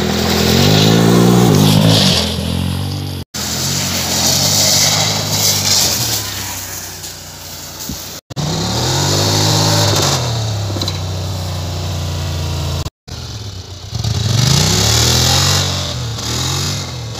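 ATV engines revving up and down, the pitch rising and falling again and again, in several short segments with abrupt cuts between them.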